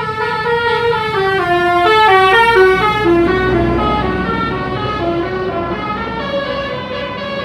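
Bus telolet horn, a set of musical air horns, playing a long, quick tune of notes that step up and down, several horn tones sounding together.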